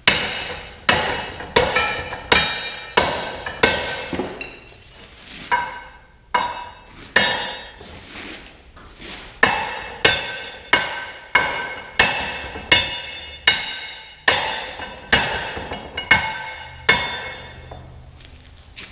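Hammer striking a steel tractor three-point hitch lift arm over and over, about one blow every second or less, each ringing out with a metallic tone, as he beats on a welded-in end to knock it loose. The blows stop shortly before the end.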